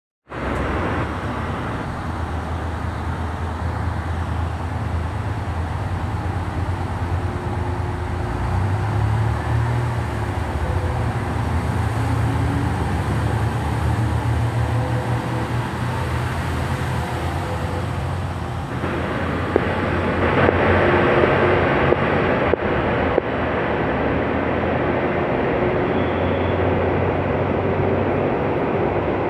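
JR West KiHa 187 series diesel multiple unit pulling out of the station under power, its diesel engines running with a low hum that strengthens as it accelerates. Past the middle, a louder rushing noise sets in with a few sharp clicks as the train draws away.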